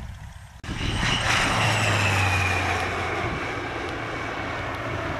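A single-engine propeller light aircraft flies low overhead. Its engine and propeller sound cuts in abruptly about half a second in, then its pitch falls steadily as it passes and slowly fades.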